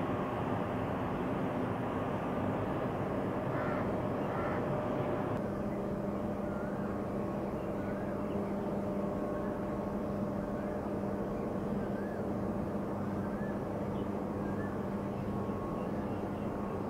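Stacker-reclaimer conveyor machinery running: belt, rollers and drive make a steady mechanical din with a hum whose pitch shifts about five seconds in. Faint short chirps recur about once a second in the second half.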